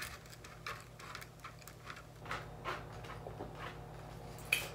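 Eating at the table: scattered soft clicks and taps of a fork on a plate and of chewing, with one sharper click near the end, over a low steady hum.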